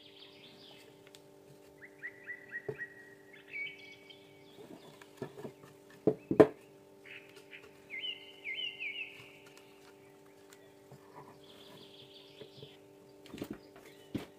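A small bird chirps in short bursts of quick repeated notes, five or six times, over a steady hum. A few sharp knocks and clicks come from wires and parts being handled, the loudest about six seconds in.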